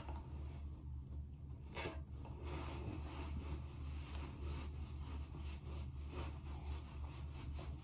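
Faint rubbing and handling noises over a steady low hum.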